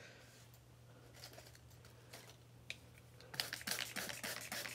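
Trigger spray bottle misting water onto dry oak leaf litter in a plastic tub: a few faint ticks, then from about three seconds in a quick run of rapid ticking spritzes.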